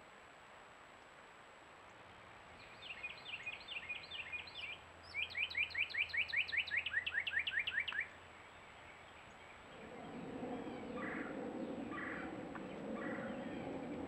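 Northern cardinal singing: about five down-slurred whistles, then a faster run of about fourteen slurred notes that cuts off abruptly. A few seconds later comes a steady low rushing noise with a few faint chirps in it.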